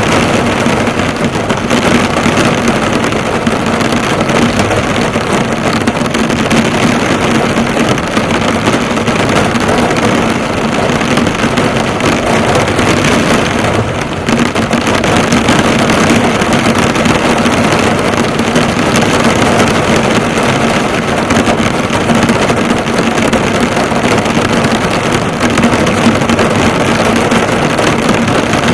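Heavy rain falling hard on a car, the drops hitting and bouncing off the hood in a steady, dense patter, with a faint steady low hum underneath.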